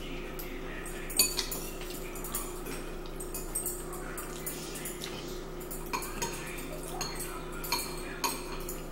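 Metal forks clinking and scraping against ceramic bowls while eating spaghetti and meatballs: scattered sharp clinks, the loudest about a second in, with a steady low hum underneath.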